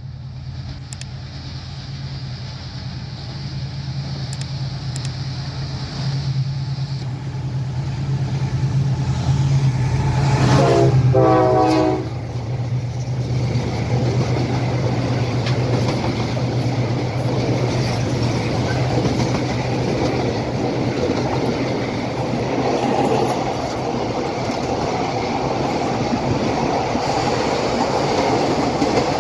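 Diesel locomotive approaching with its engine running, growing steadily louder. About ten seconds in it sounds its horn for about a second and a half. The train then passes with a heavy rumble and wheel clatter.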